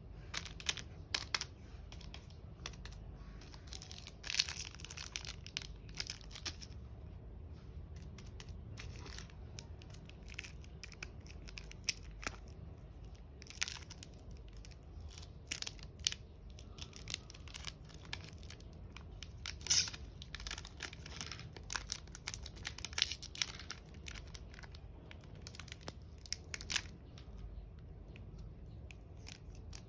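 Chocolate bar wrappers being torn open and crinkled by hand, in irregular crackles and short rips.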